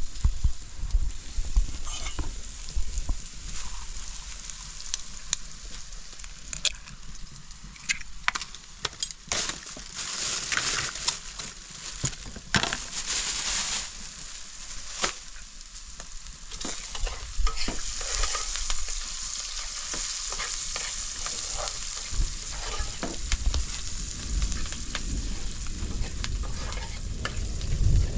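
Food frying and sizzling in hot oil in a pan, with frequent clicks and scrapes of a utensil stirring it. The sizzle swells louder about a third of the way in and again past the middle.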